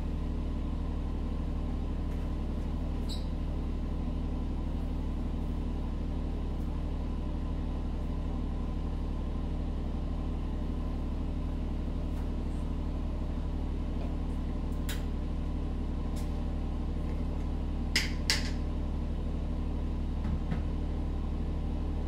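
A steady low hum, unchanging throughout, with a few faint clicks, two of them close together about eighteen seconds in.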